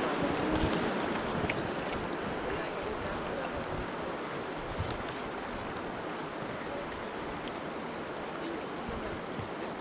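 Steady rushing of river water around an inflatable raft on the rapids, an even wash of noise with a few faint ticks and splashes.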